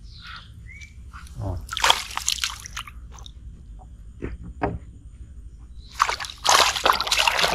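A catch hooked on a fishing longline thrashing and splashing at the surface of the water beside the boat, in a burst about two seconds in and a longer one near the end.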